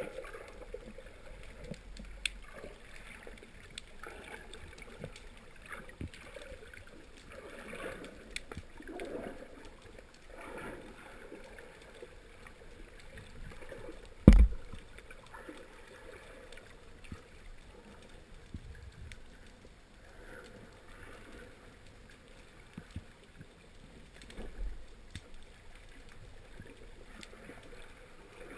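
Muffled underwater water noise, swishing in slow swells, with one sharp knock about halfway through.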